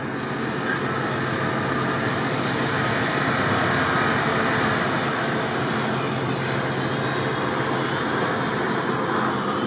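Nissan Patrol SUV engine running steadily as it drives toward and past, a low hum with a noisy rush that swells a little midway.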